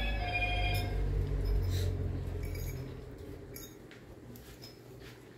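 Kitchenware clinking: one ringing clink at the start that fades over about a second, then a few light taps and clicks. A low rumble underneath fades out about three seconds in.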